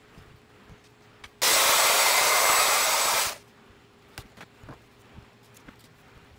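Electric router running at full speed for about two seconds, a loud even whine that starts and stops abruptly. Small clicks and taps of handling follow.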